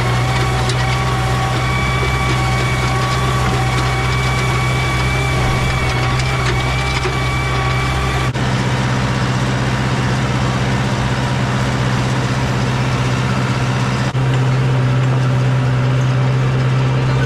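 Tractor engine running steadily under way, with a strong low hum. Its sound shifts abruptly twice, about 8 and 14 seconds in.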